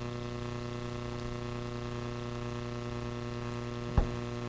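Steady electrical hum with a buzzy stack of tones, and a single sharp click about four seconds in.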